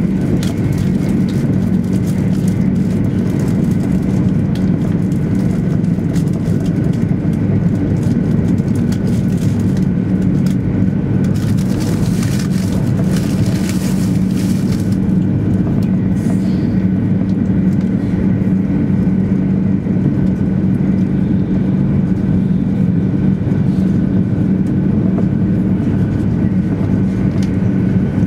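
Inside a 200 series Shinkansen train running at speed: a steady low rumble of wheels and running gear with faint steady whine tones. About twelve seconds in, a stretch of brighter hiss lasts about three seconds.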